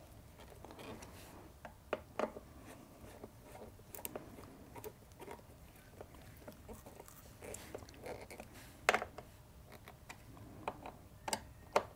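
Hand screwdriver tightening the screws of a motorcycle air-filter cover plate: faint scattered clicks and scrapes of the blade in the screw heads, with a sharper click about nine seconds in and a few more near the end.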